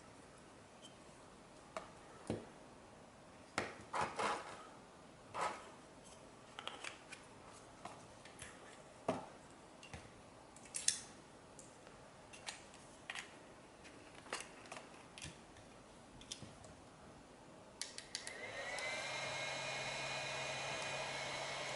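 Scattered clicks and knocks, then about eighteen seconds in the iRIVER MF-M3 mini handheld fan's motor is switched on, its whine rising briefly and settling into a steady running tone with a low hum.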